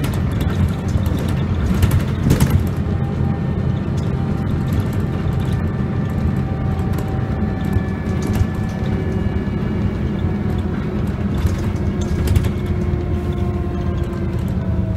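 Volvo B7L single-decker bus heard from inside the saloon while under way: steady engine and drive rumble with a whine that climbs slowly in pitch and falls away near the end. Occasional knocks and rattles come from the body and fittings.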